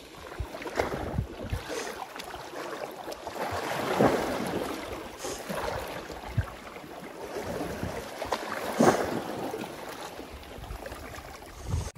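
Sea swell washing and sloshing over rocks and kelp at the water's edge, surging louder about four seconds in and again near nine seconds, with wind buffeting the microphone.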